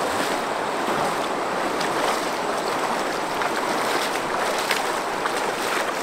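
Steady rush of flowing water, with faint scattered clicks.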